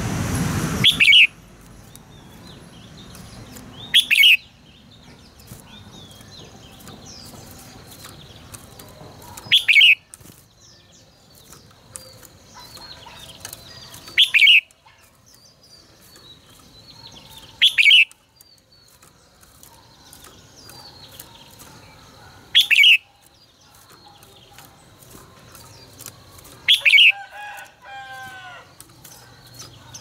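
Red-whiskered bulbul giving short, loud, sharp calls, seven of them every four or five seconds, with a brief warbling phrase near the end. A rooster's crow ends about a second in, and faint chirps of other birds run beneath.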